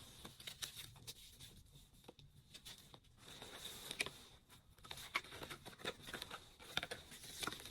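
Faint, irregular rustling with light clicks from a down jacket and its wrapping being handled, busier in the second half.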